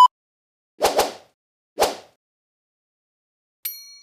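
Edited intro sound effects. A steady colour-bar test-tone beep cuts off just after the start. Three short hits follow, two in quick succession about a second in and one near two seconds, and near the end a bright chime rings out and fades slowly.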